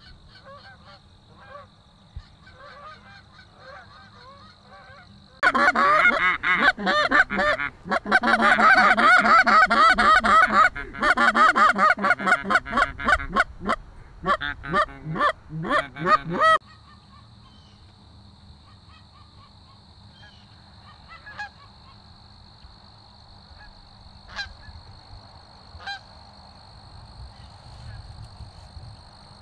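Canada geese honking. The honks are faint at first. About five seconds in they become a loud, dense chorus of honks and clucks lasting about ten seconds, which cuts off suddenly. Faint scattered honks follow.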